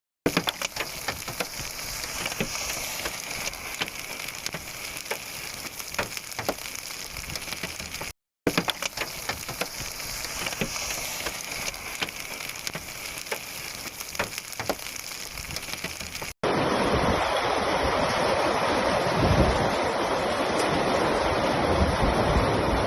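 Rain falling, many separate drops ticking on hard surfaces over a light hiss, broken off briefly about eight seconds in. About sixteen seconds in it gives way abruptly to a louder, steady rushing noise.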